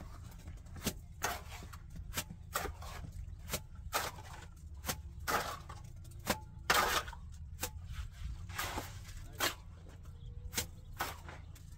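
Irregular taps, knocks and short scrapes of hand tools at plumbing and cement work, somewhat under two a second, with a longer scrape about seven seconds in as the loudest. A low steady hum runs underneath.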